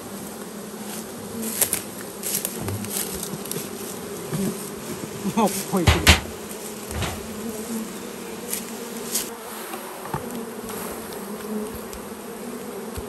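A mass of honeybees humming steadily over an opened hive box full of comb and honey. Scattered sharp clicks sound over the hum, with one louder knock about halfway through.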